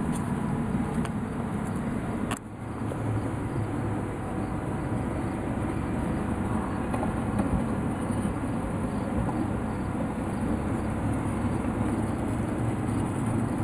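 Steady outdoor background noise, mostly a low rumble, with a short click and a brief drop in loudness about two and a half seconds in.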